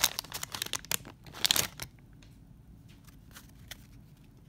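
Paper wrapper of a 1991 Donruss baseball card pack being torn open and crinkled by hand, in a few crackly rips over the first second and a half, then only faint rustles as the cards come out.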